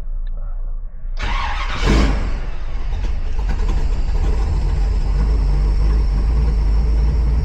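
1957 Chevrolet Bel Air engine cranking and catching about a second in, flaring up briefly, then settling into a steady idle. It starts readily this time, the intermittent no-start fault not showing.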